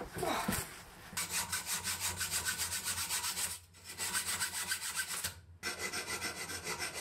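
Hacksaw cutting a metal solar-panel mounting bracket clamped in a bench vise, in quick back-and-forth strokes of about four a second, with two short pauses. Before it, in the first second, there is a brief clatter of handling.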